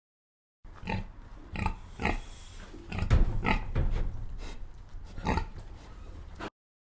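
Pig grunting: a string of short grunts a fraction of a second to a second apart, over a low steady background noise. The recording starts about half a second in and cuts off suddenly near the end.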